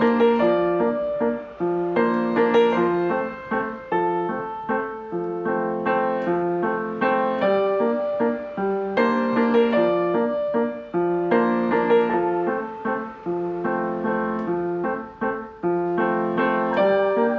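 Background piano music: a gentle melody of separate notes over a repeating low accompaniment.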